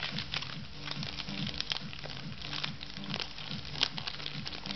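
Clear plastic wrap crinkling and crackling as fingers peel it off a PVC figure, in many small irregular crackles.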